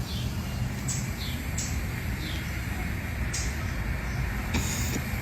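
Steady low hum with faint, short high chirps every second or so and a single click near the end.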